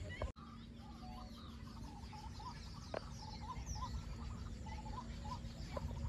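Birds calling: a short call repeated roughly once a second, with thinner chirps and twitters higher up, over a low rumble. A single sharp click about halfway through.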